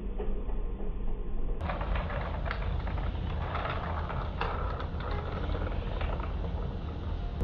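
Supermarket aisle sound: a steady low hum beside freezer cabinets, with shoe steps and the clicks and knocks of a plastic shopping basket starting about a second and a half in.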